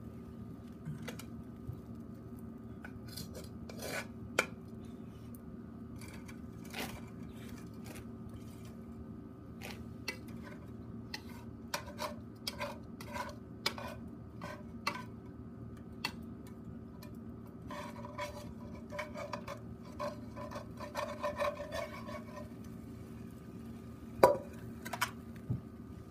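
Long metal tongs clicking and scraping on the wire grill net of a charcoal shichirin, with a frying pan clattering against the grill, in scattered strokes and short runs. The loudest single clank comes near the end, over a steady low hum.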